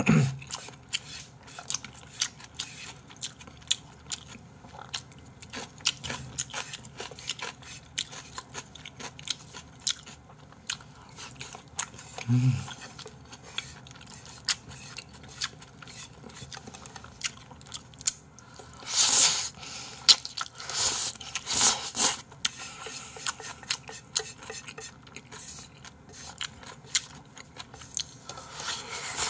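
Close-up eating of jjapagetti noodles with thin-sliced pork belly: chewing, with small clicks of chopsticks against the plate. A few louder noisy bursts come about two-thirds of the way through, and there is a brief low hum of the voice near the middle.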